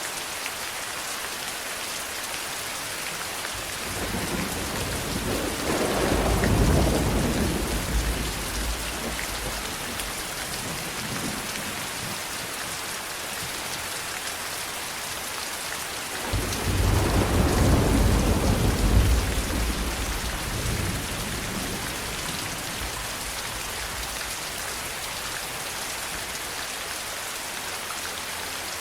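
Steady rain with two rolls of thunder. The first swells up about four seconds in and rumbles for several seconds. The second breaks in more sharply about sixteen seconds in, then rumbles and fades.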